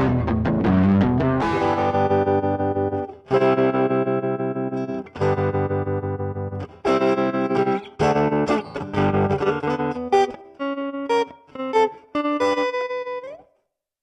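Electric guitar played through a Zoom G1Four multi-effects pedal on its Deluxe Trem patch: a quick flurry of picked notes, then full chords struck and left to ring several times, then single notes, stopping shortly before the end.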